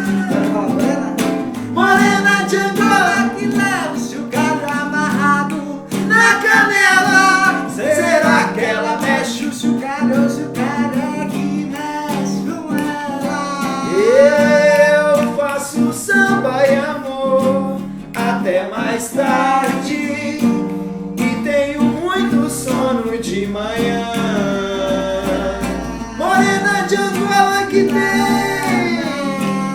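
Live band music: guitar played with a voice singing over it.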